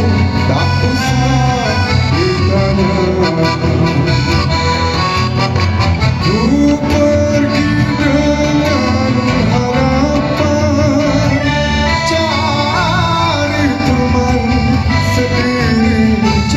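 A small live band playing through a PA: keyboard, bass guitar, acoustic guitar and frame drum, with a steady bass line under a gliding accordion-like melody.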